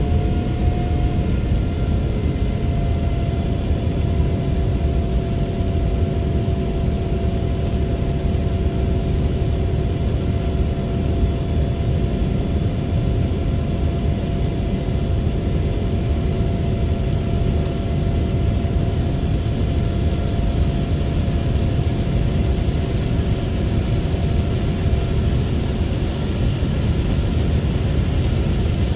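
Steady engine and airflow noise inside the cabin of a Boeing 787-9 climbing after takeoff: a deep, even rush with a few faint steady hums above it.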